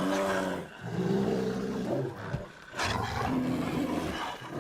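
Grizzly bears growling and roaring in a run of aggressive calls during a confrontation with wolves over a kill, with a sharp snarl near the middle.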